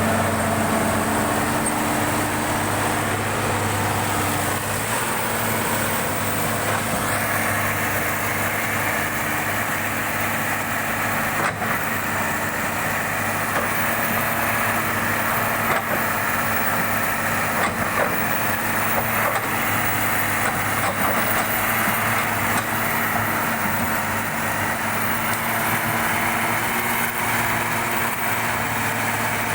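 Tracked excavator's engine running steadily with a constant low note.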